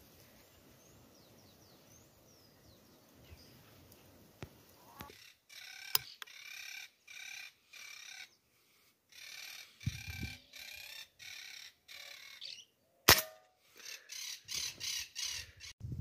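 Monk parakeets squawking from about five seconds in: a string of harsh calls, roughly two a second. About thirteen seconds in there is a single sharp shot from a PCP air rifle, the loudest sound.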